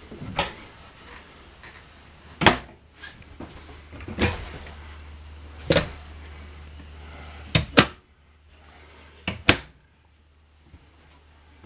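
Wooden cabinet doors in a travel trailer being opened and shut: a series of sharp knocks and latch clicks every second or two, the loudest about two and a half seconds in, with two quick double clicks in the second half. A low steady hum runs underneath.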